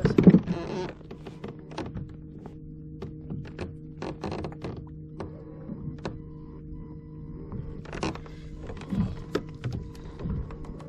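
A loud rustling clatter about a second long, then scattered knocks and clicks of gear being handled aboard a kayak, over a steady low hum.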